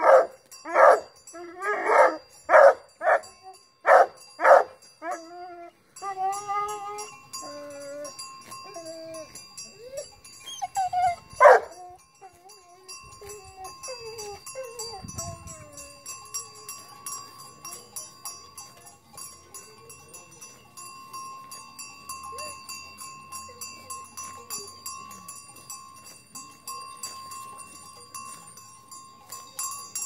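A dog barking repeatedly, about two barks a second, then a few wavering, falling calls and one sharp loud call near the middle. After that comes the steady clinking ring of a cow's collar bell as the cow grazes.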